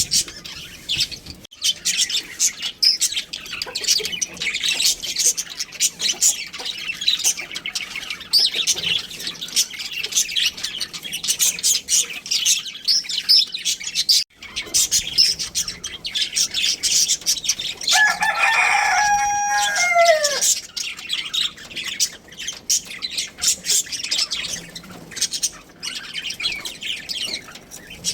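Budgerigars chattering in a dense, continuous run of high chirps and warbles. About 18 seconds in, a rooster crows once for about two seconds, the call falling away at its end.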